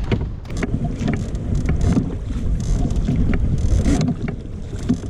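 Wind buffeting the microphone as a low rumble, with scattered light knocks and clicks from movement in the canoe.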